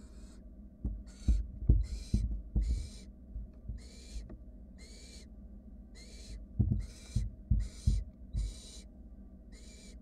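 Barn owl nestlings giving repeated hissing, snore-like begging calls, about a dozen short rasps at one or two a second. Louder low thumps and scuffs come in two clusters, one near the start and one in the second half, as the owlets shift about on the nest box floor.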